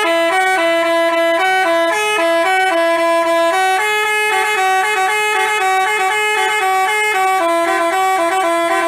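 Telolet basuri bus horn playing a tune, its pitched notes sounding two at a time and stepping quickly from note to note without a break.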